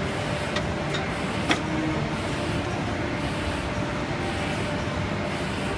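Automatic paper unloader and cutting line running: a steady mechanical noise with a faint hum and a few light clicks, the sharpest about a second and a half in.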